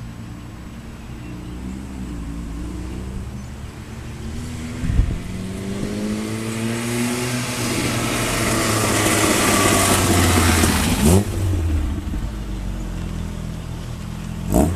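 1984 VW Scirocco 8-valve four-cylinder on a full aftermarket exhaust (headers, cat-back, Magnaflow open muffler) accelerating and driving by: the exhaust note climbs in pitch, grows louder to a peak about ten seconds in, then fades. Short sharp bangs about five seconds in, about eleven seconds in and near the end.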